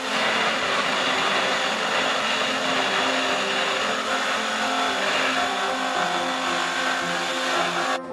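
A loud, steady rushing machine noise, like a vacuum or blower motor, with music playing underneath. The machine noise cuts off suddenly near the end, leaving the music.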